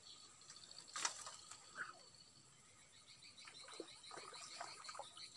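Faint swamp-bank ambience: a steady insect drone, then quick repeated chirping calls of small creatures from about three seconds in. One sharp knock sounds about a second in.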